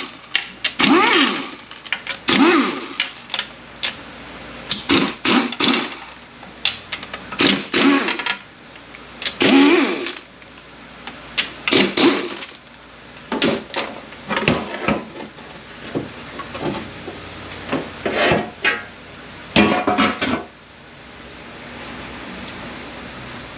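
Power ratchet spinning out transmission fasteners in many short runs, mixed with metal parts clinking and clanking as they are set down. A steady hum takes over in the last few seconds.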